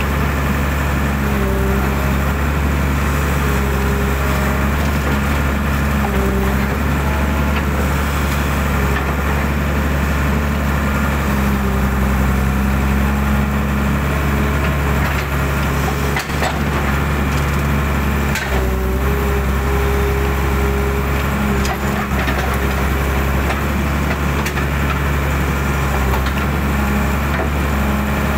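Hydraulic excavator's diesel engine running steadily under working load, with a whine that rises and falls as the hydraulics move the arm and bucket. A few sharp knocks in the second half.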